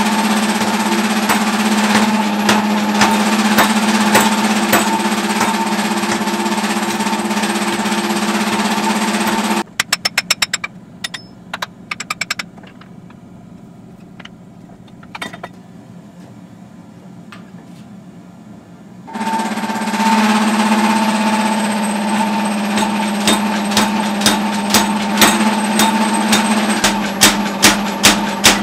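Power hammer running with a steady hum and rapid, continuous blows on a glowing steel hammer head. It stops about a third of the way through, with a few separate blows and then a quiet stretch. The machine starts up again about two-thirds through, and near the end it lands heavy, regular blows about twice a second on a hand-held punch driven into the hot steel.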